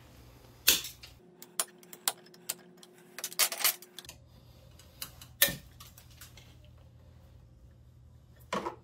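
Scattered sharp clicks and knocks of hand tools and metal parts as a Honda PCX 125 scooter's engine area is reassembled. A quick run of small clicks falls in the middle, with louder knocks about a second in and about five and a half seconds in.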